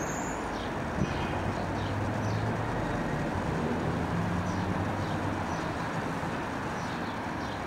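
Steady background rumble of vehicle engines, like distant traffic, with a low hum that shifts in pitch and faint short high chirps now and then.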